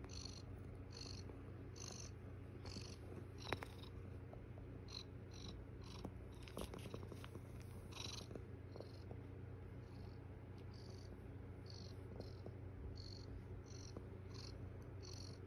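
Domestic cat purring steadily up close. A faint high chirping repeats a little faster than once a second, and there is a single sharp click about three and a half seconds in.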